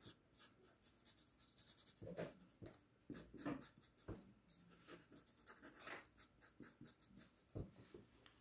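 Faint scratching of a felt-tip marker on paper in short, irregular strokes as a drawing is coloured in.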